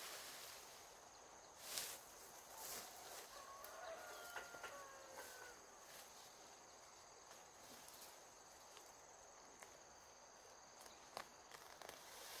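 Quiet rural outdoor ambience: a faint steady high insect drone, a few soft rustles about two seconds in and again near the end, and faint animal calls around the middle.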